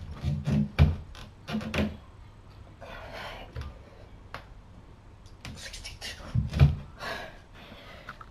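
Doorway pull-up bar clunking against the door frame during a pull-up, with strained breaths and grunts. A heavier thump about six and a half seconds in, as he drops off the bar to the floor.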